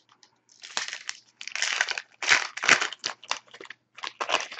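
Plastic wrapper of a trading card pack crinkling and tearing as the pack is ripped open, in a run of irregular rustling bursts.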